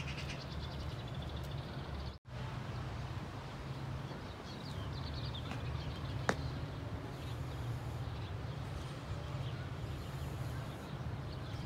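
Outdoor garden ambience: small birds chirping now and then over a steady low rumble. The sound cuts out for an instant about two seconds in, and there is a single sharp click a little after the middle.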